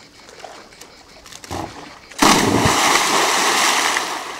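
A person plunging into a swimming pool after a somersault: a loud splash of water that starts suddenly about two seconds in and dies away over the next two seconds.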